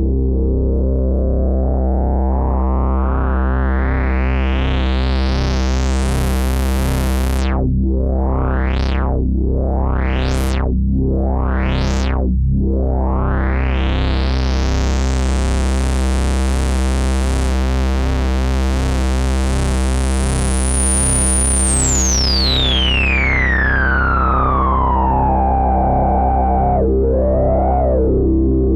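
Novation Bass Station II analog synthesizer holding one low bass note while its filter is swept: a slow opening over several seconds, three quick up-and-down sweeps, another slow opening, then a bright resonant whistle that glides steadily down from very high to low.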